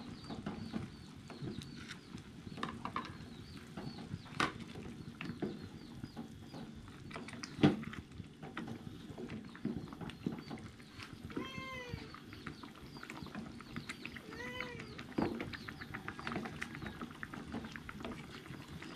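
Cat meowing twice, two short rising-and-falling calls a few seconds apart past the middle. Under it, a spatula scrapes and clicks around an aluminium saucepan as a thin jelly mixture is stirred on the stove, with one sharp knock about two-fifths in.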